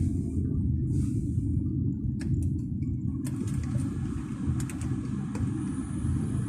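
A car driving along a road: a steady low rumble of road and engine noise, with a few light clicks about two seconds in.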